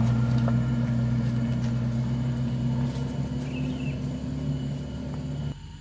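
Off-road 4x4's engine idling with a steady low hum, which stops abruptly near the end.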